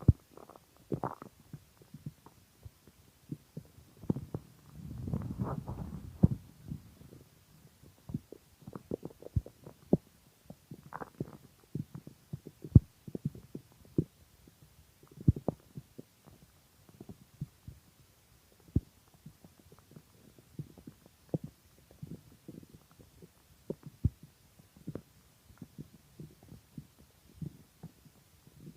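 Hungry, empty stomach growling and gurgling: many short, irregular pops and gurgles, with a longer low rumble about four seconds in.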